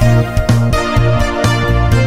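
Background music with a steady beat about twice a second over sustained chords and a bass line that changes notes about every half second.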